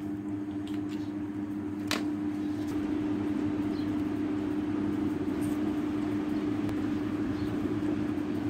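Steady low machine hum with a rushing noise that grows a little louder two or three seconds in, and a single sharp click about two seconds in.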